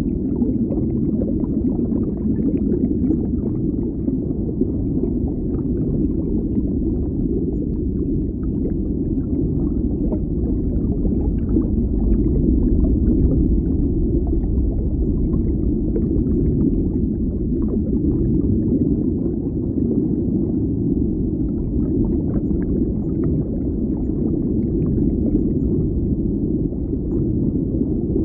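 Deep underwater ambience: a steady, muffled low rumble with faint crackling over it.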